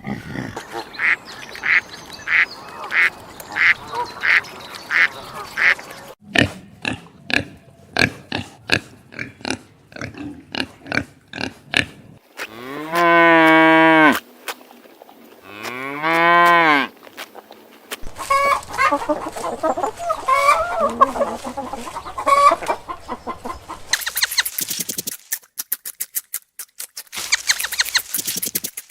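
A run of farm animal calls one after another: repeated honking of geese at about two calls a second at the start, then a stretch of sharp short sounds, two long drawn-out calls that waver in pitch, and a jumble of mixed calls near the end.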